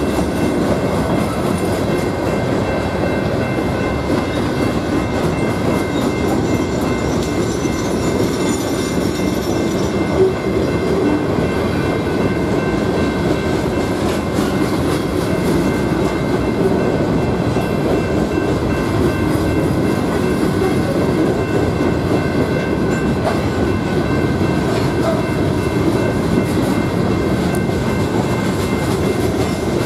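Steel wheels of a long freight train of coal cars rolling steadily over the rails at a grade crossing: a continuous rumble with a sharp knock about ten seconds in.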